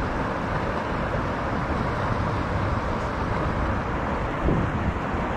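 Steady rush of a river's flowing water, an even noise without breaks, with a brief faint sound about four and a half seconds in.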